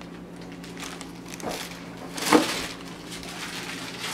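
Wrapping paper being torn and rustled as presents are unwrapped, in short ripping bursts, the loudest about two seconds in.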